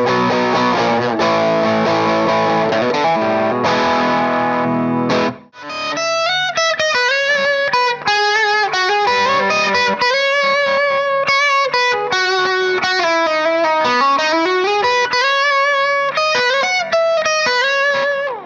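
Bacchus Universe Series Telecaster-style electric guitar being played. Dense ringing chords last about five seconds and break off. After a short gap comes a single-note lead line with bent notes and gliding pitches, which stops near the end.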